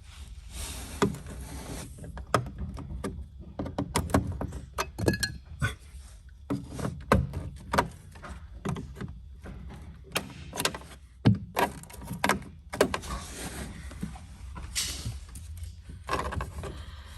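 Hands working behind a car dashboard: irregular clicks, knocks and rattles of wiring, connectors and plastic trim being handled, over a steady low hum.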